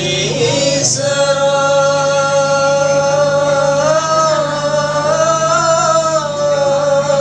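Sholawat singing in a hadroh performance: a singer holds one long note for about six seconds, bending slightly up and down in pitch around the middle.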